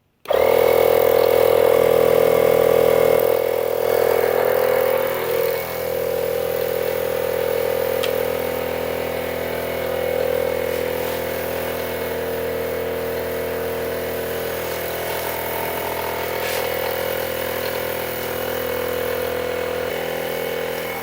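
A small 12-volt portable tire-inflator air compressor switches on abruptly and runs with a steady buzzing hum, pumping air into a punctured car tire.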